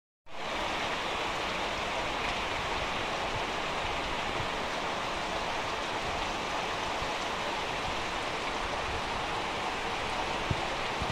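Heavy rain pouring down as a dense, steady hiss, starting abruptly after a split-second gap.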